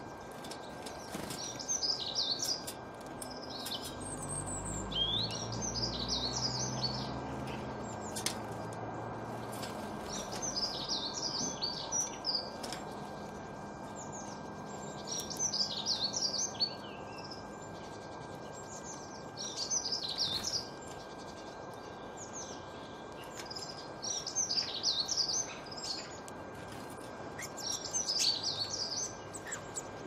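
Garden songbird singing short, rapid phrases of high notes, one phrase every three to four seconds, over steady background noise. A low rumble comes and goes in the first third.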